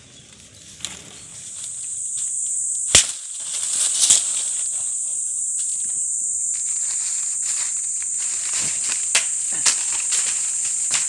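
Steady high-pitched drone of insects in the trees, fading in about a second and a half in and then holding. A sharp knock comes about three seconds in, and a few lighter clicks and knocks follow.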